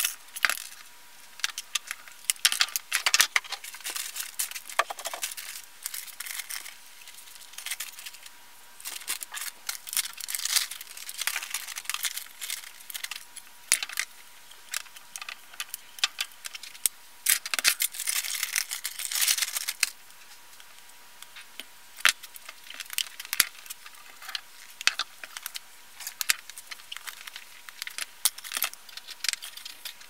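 Plastic hair dryer being taken apart by hand: its housing, switch and wiring clicking, rattling and scraping in irregular spells of small knocks, busiest around three, eleven and nineteen seconds in.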